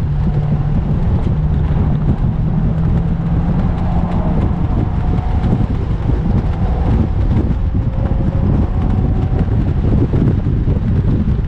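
Heavy wind buffeting on the microphone in the open cockpit of a Mazda MX-5 NC at track speed, with the car's swapped-in 2.5-litre engine running under it. The engine note holds steady for the first few seconds, then a higher note comes through for a few seconds.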